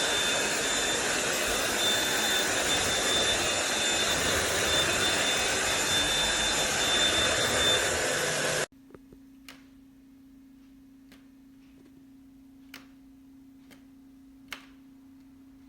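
Cordless stick vacuum running with a steady high whine over its rush of air, which stops abruptly about nine seconds in. After that comes a faint low hum with a few light clicks.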